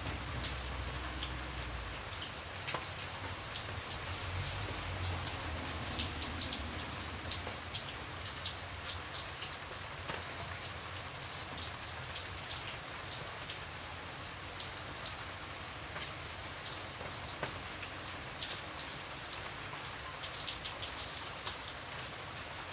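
Light rain falling steadily, with a constant hiss and many scattered individual drops ticking on a surface.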